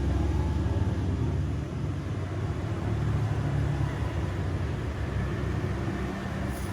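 Steady low rumble, with no clear strikes or tool sounds.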